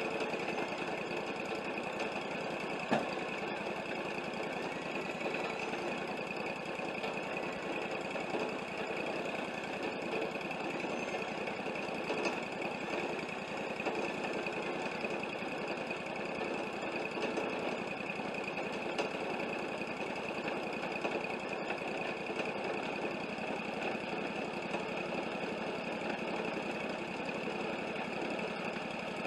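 Wood-Mizer LT40 portable bandsaw sawmill running steadily, its engine and blade drive making an even mechanical drone. A single sharp click about three seconds in.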